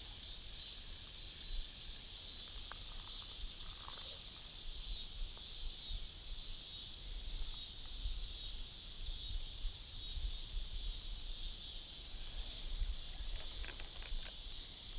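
Steady high-pitched insect drone that pulses in a regular wavy rhythm, over a low rumble of wind on the microphone, with a few faint rustles and clicks.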